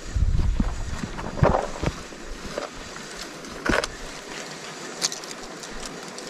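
Wind buffeting the microphone, loudest in the first second, with a few short rustles and knocks.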